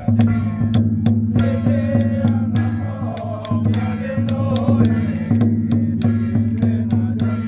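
Temple ritual music for a xiaofa exorcism rite: a voice chanting an incantation in a wavering line, over frequent, unevenly spaced strikes of a large drum and other percussion.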